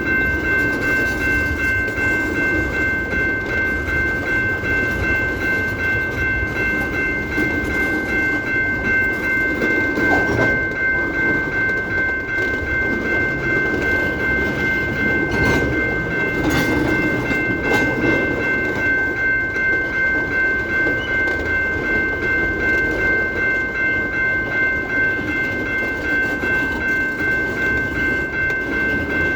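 Kansas City Southern locomotive air horn sounding one long unbroken chord, held steady throughout, over the rumble of the train. A few clanks come through from about ten seconds in and again in the middle.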